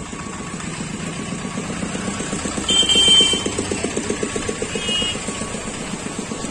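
Motorcycles and a small goods truck driving slowly past, engines running with a pulsing hum that is loudest about three seconds in. There are short high-pitched beeps about three seconds in and again near five seconds.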